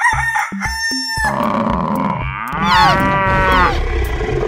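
A short run of stepped electronic tones, then recorded animal calls: a rooster crowing about halfway through, among other farm-animal sounds.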